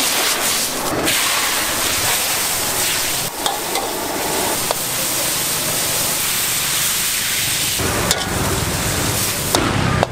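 Morning glory sizzling in a very hot wok over a high gas flame as it is stir-fried, a steady dense hiss with a few sharp clanks of the metal spatula against the wok.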